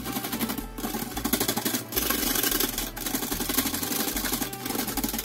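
Metal balloon whisk beating a liquid egg, sugar, lemon juice and cream mixture by hand in a glass bowl: fast rhythmic clicking and scraping of the wires against the bowl, with a few brief pauses.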